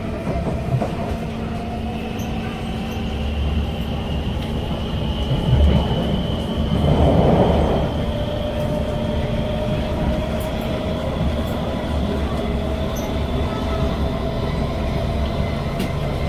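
SMRT C151 train heard from inside the car while running between stations: a steady wheel-and-rail rumble under a motor whine that slowly rises in pitch. A louder rushing swell comes about seven seconds in.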